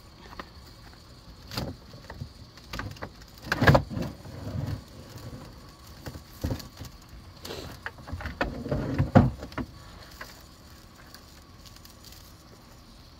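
Handling noises from a frozen RV water hose being twisted and moved: irregular knocks and thumps, the loudest a little under 4 s in and around 9 s in.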